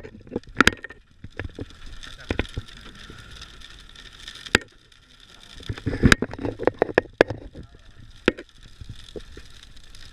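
Scattered sharp knocks and clicks, several loud ones between about four and eight seconds in, over a steady hiss.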